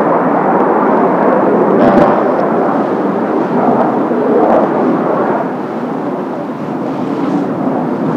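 Jet roar from the Blue Impulse Kawasaki T-4 jet trainers, loud at first and slowly fading as they fly away, with gusts of wind thumping on the microphone.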